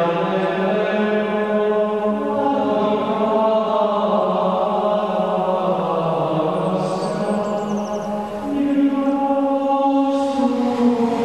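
Male voices chanting in unison in plainchant, holding slow, sustained notes and moving from one pitch to the next.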